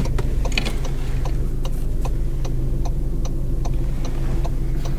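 Skoda Octavia's hazard warning flasher ticking in a steady tick-tock, about two and a half clicks a second, over the engine idling steadily.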